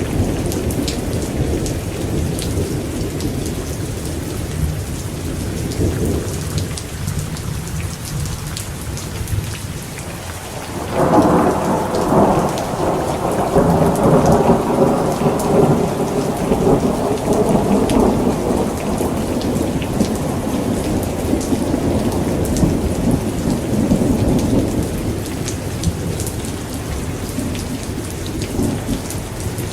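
Thunderstorm: steady rain with scattered drop ticks and a low rumble of thunder. About a third of the way in, a loud thunderclap breaks and rolls on, fading slowly over the next fifteen seconds or so.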